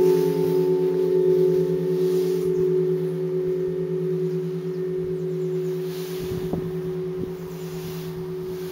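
A large church bell's ringing dying away after its last stroke: several steady low tones with a slow wavering beat in the lowest, fading steadily with no new strike. A few faint knocks come about six to seven seconds in.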